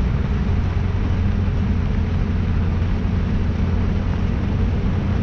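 Steady rush of air from the dash vents with the A/C blower on max, over the low, even running of the 7.3-litre turbo-diesel V8 at idle, heard inside the cab.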